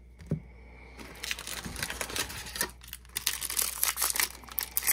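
Silver foil wrapper of a Topps baseball card pack crinkling and tearing as it is ripped open by hand, a dense run of crackles starting about a second in.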